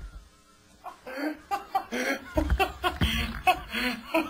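Laughing: a short hush, then repeated short chuckles starting about a second in.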